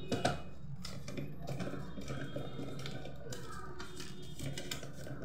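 Light clicks and rustles of hands handling a plastic toy drawing machine, pressing a paper disc down onto its geared platform.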